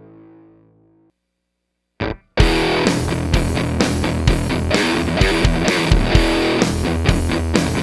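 Kramer Night Swan electric guitar through a Zvex Box of Metal pedal into a Marshall JCM800 amp. A held chord dies away, a second of silence follows, then a short stab about two seconds in, and from there heavy fuzz-distorted riffing with a rhythm of sharp picked attacks.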